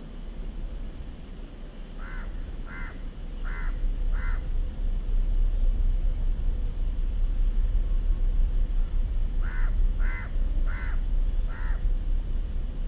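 A crow cawing in two runs of four short caws, several seconds apart, with more caws beginning near the end. Under them, a steady low rumble.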